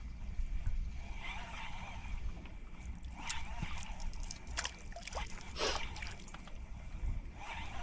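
Water splashing and sloshing around a small fishing boat, with three short splashes in the middle, over a low steady rumble.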